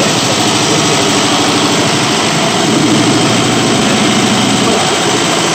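Hyundai EF Sonata gasoline engine on a bare training stand, idling steadily with an even beat.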